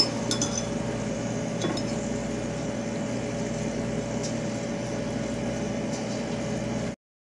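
Steady electric motor hum of a kitchen appliance, with a few faint light clicks of a plastic spoon against the pot. The sound cuts off suddenly about a second before the end.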